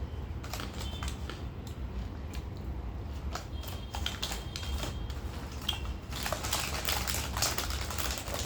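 Crunching of roasted jowar puffs being eaten: a run of sharp, crisp clicks that thickens into a dense crackle about six seconds in.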